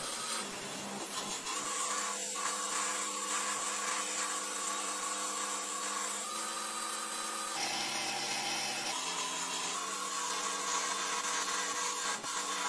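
Small metal lathe running and turning an aluminium bar, the cutting tool shaving chips off it. It makes a steady hum and hiss, and its tones shift in pitch a few times as the cut changes.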